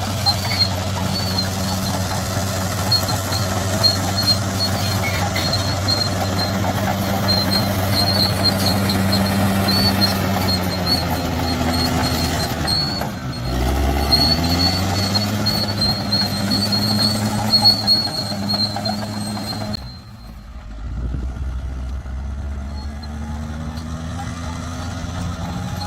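Bulldozer's diesel engine working, with a steady high whine over it; about halfway through the engine pitch dips and climbs back up. About three quarters of the way through the whine stops suddenly and the engine runs quieter.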